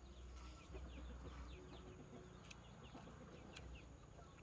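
Chickens calling softly: a continuous run of short, high, falling peeps, with a few faint clicks.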